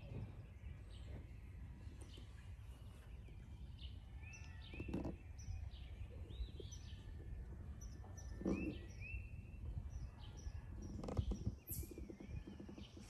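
Songbirds chirping: short high notes, many with a quick rise and fall in pitch, repeated in small runs, over a low steady outdoor rumble with a few soft thumps.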